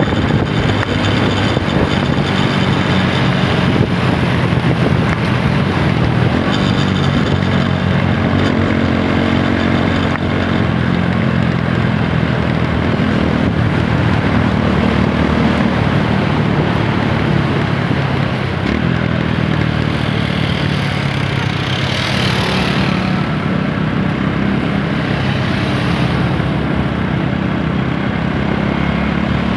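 TVS Apache RTR 160 4V single-cylinder engine running while riding, its pitch shifting with the throttle, over steady wind and road noise. A short rushing hiss swells about three-quarters of the way through.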